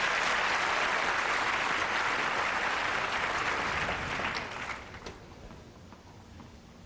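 Tennis crowd applauding, then dying away about five seconds in.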